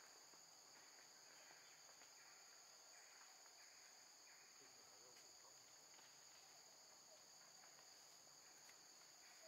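Faint, steady high-pitched insect drone, two unbroken tones, in otherwise near silence.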